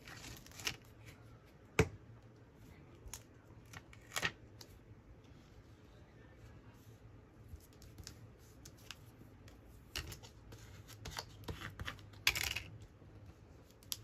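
Paper and card being handled and pressed down on a cutting mat as a glued cut-out is smoothed into place: light rustling with scattered taps and clicks, the sharpest about two seconds in and a longer rustle near the end.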